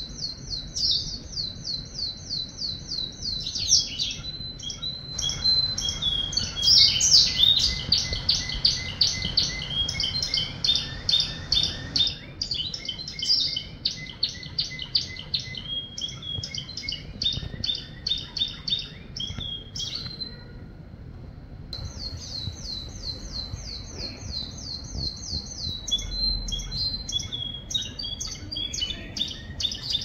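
Domestic canary singing a long song made of rapid trills, each a quick run of the same high note repeated, switching from one trill to the next. The song breaks off briefly about twenty seconds in, then goes on.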